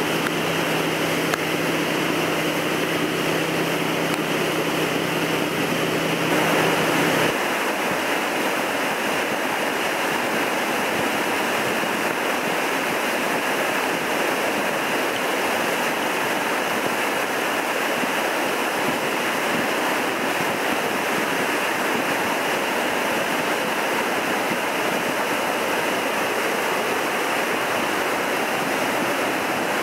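Floodwater of a swollen river rushing and churning under a stone arch bridge: a steady, loud rush of fast water.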